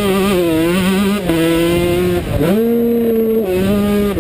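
Yamaha YZ125 single-cylinder two-stroke motocross engine under way at high revs, heard up close from the bike. The throttle is chopped briefly about a second in and again about two seconds in, each time the revs climbing straight back up, with a small drop in pitch near the end.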